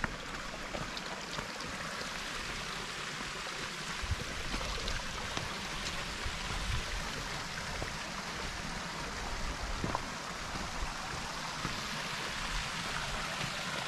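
Steady rushing noise of running water, like a small stream, with a few faint ticks scattered through it.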